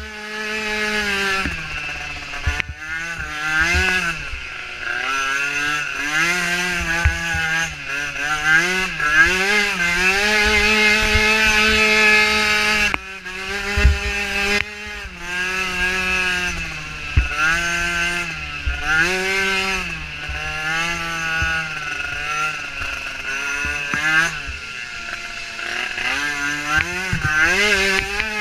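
Micro ATV engine being ridden hard, its pitch climbing and falling again and again as the throttle is opened and eased, with a sudden drop about halfway through.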